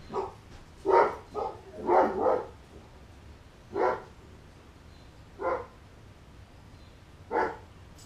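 A dog barking: about eight short barks at uneven spacing, a quick cluster in the first two and a half seconds, then single barks every second or two.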